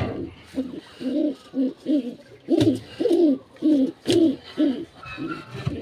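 Domestic pigeon cooing in a quick run of short, low hoots, about two to three a second, with a couple of sharp taps among them.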